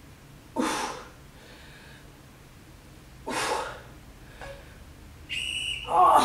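A woman's hard breaths out from the effort of push-ups: two sharp exhalations about three seconds apart. A short, steady high tone sounds near the end.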